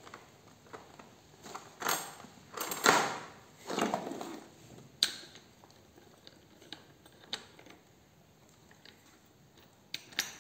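Handling noises from a chainsaw under repair: metal parts and tools being shifted and scraped, then a sharp metallic click about halfway through, scattered light ticks, and two quick clicks near the end.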